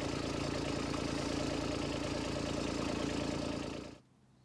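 Diesel engine of a 1.7-ton rubber-tracked mini excavator idling steadily, dropping away sharply near the end.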